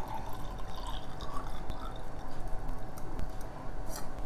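Faint water sounds and light knocks from a drinking glass of water being handled, over a low steady hum.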